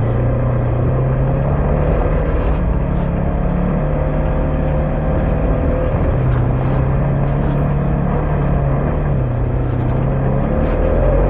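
Polaris General 4 1000 UTV's twin-cylinder engine running while the machine is driven on a trail. Its pitch steps up and down a few times as the throttle changes.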